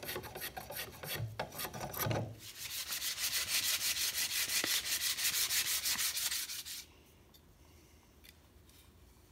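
A hand tool worked back and forth over a wooden stick that is being shaped into a shovel handle. There are a few uneven scraping strokes first, then a fast, even run of rubbing strokes for about four seconds that stops abruptly.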